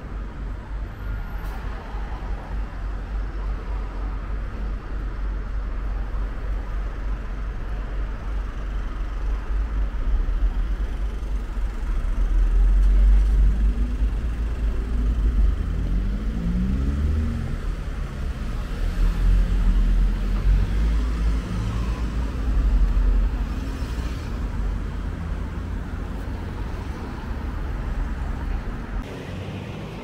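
Road traffic on a city street: cars and a bus passing over a steady low rumble. Around the middle, a vehicle's engine rises in pitch several times as it accelerates through its gears.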